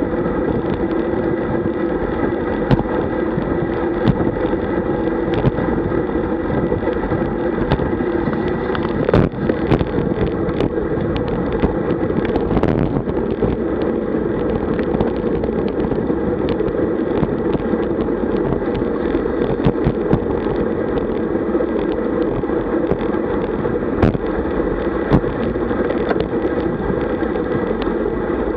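Steady wind rush and road rumble on a road bike's action camera riding at about 45 km/h, with a few light knocks from bumps in the road.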